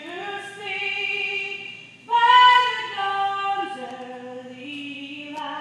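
A woman singing the national anthem solo and unaccompanied, holding long notes that step down and back up, the loudest a higher note about two seconds in.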